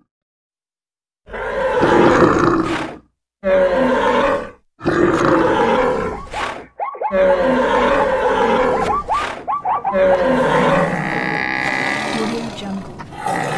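Animal stampede sound effects: a string of roars and grunts in separate bursts of one to two seconds, starting about a second in; from about seven seconds in they run on without a break.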